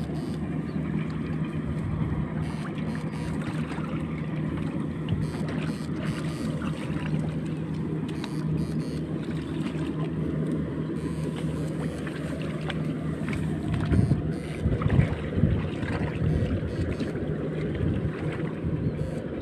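Steady low hum from an electric fishing rig, with water sloshing as someone wades and works the probe; a few louder splashes come about 14 to 16 seconds in.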